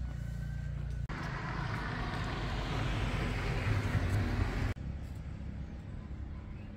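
A road vehicle going past, heard as a broad rush of road noise that swells and then fades, with a low engine rumble near its loudest point. It starts and stops abruptly, with quieter steady background before and after.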